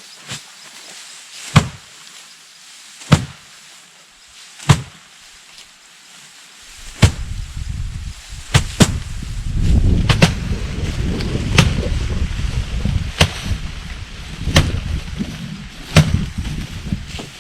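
Sharp strikes repeated about every one and a half seconds, with a low rumbling noise joining in about seven seconds in and continuing under the strikes.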